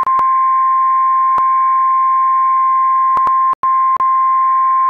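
NOAA Weather Radio's 1050 Hz warning alarm tone: one loud, steady high beep that announces a warning message is about to be read. A few short clicks and a split-second dropout about three and a half seconds in break the tone.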